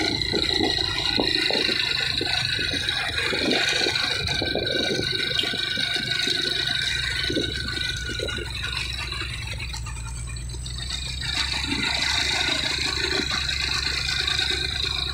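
Low, steady engine drone from motorbikes and a heavily loaded truck labouring uphill, with wind buffeting the microphone of the moving bike and a steady high whine over it.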